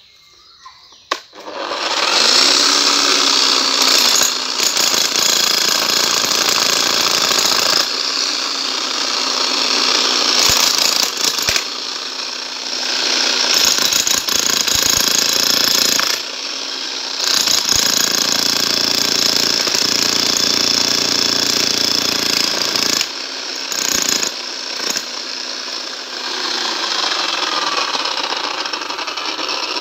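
A 12 kg electric demolition hammer with a chisel bit hammering into a granite rock. It starts about a second and a half in and runs in long stretches with several brief pauses.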